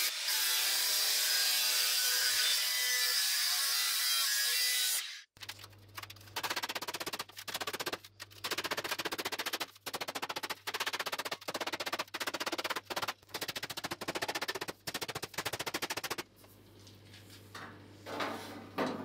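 A cordless angle grinder with a thin cut-off disc cuts through steel sheet, then stops abruptly about five seconds in. A fast run of rattling clicks follows for about ten seconds, stopping and starting several times.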